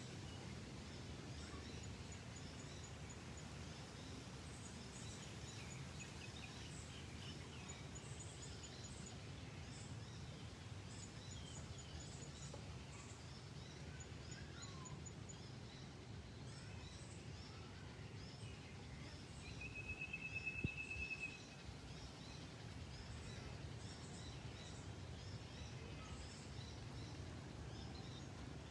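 Natural ambience of birds calling over a steady low background rumble. There are many short high chirps and several quick runs of rapid ticking. About two-thirds of the way in comes a buzzy trill of a second and a half, the loudest sound here.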